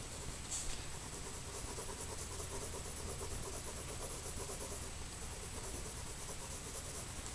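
Pencil shading on drawing paper: faint, quick, repeated scratching strokes over a steady background hiss and low hum.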